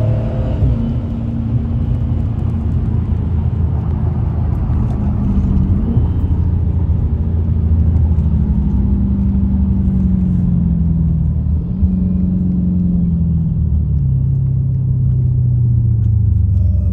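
Car engine running under way, a loud low rumble whose pitch sags and then steps back up several times as the car is driven.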